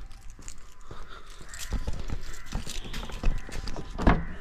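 Footsteps on hard ground, irregular and about half a second apart. Near the end comes a sharp click as a car key goes into the driver's door lock.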